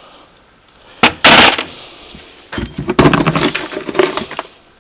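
Small metal tools and hardware clinking and rattling as they are rummaged through and picked out of a toolbox, with a loud scraping clatter about a second in and a busy run of clinks in the second half.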